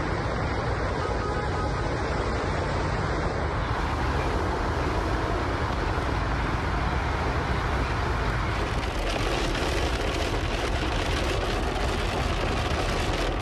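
Heavy rain and rushing floodwater heard through a phone's microphone as one steady, loud hiss. About three and a half seconds in the sound changes to a brighter rush, and it grows crackly near the end.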